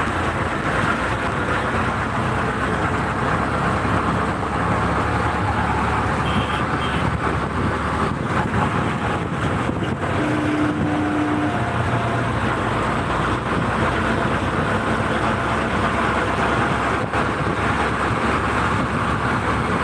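Steady road noise from a moving vehicle driving through traffic, with a brief steady tone about halfway through.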